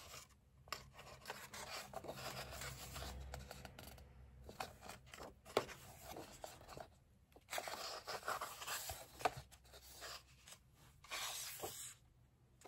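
Paper pages of a colouring book being turned by hand, several times in a row: soft swishing and rustling of paper, with a few light taps as the pages land.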